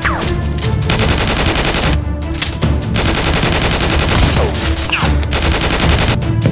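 Dubbed automatic-gunfire sound effects in long rapid bursts with short breaks, over background music.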